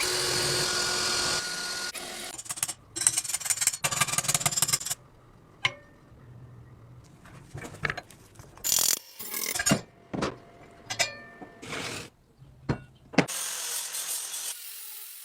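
A run of short, abruptly cut bursts of workshop tool noise, hissing and scraping, broken up by sharp taps and knocks.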